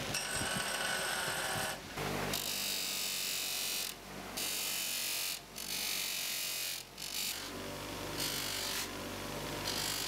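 An 8-inch bench grinder's motor runs with a steady hum while a short metal bar is pressed against the spinning wheel in repeated passes. Each pass gives a hissing grind lasting about a second, with brief dips between passes.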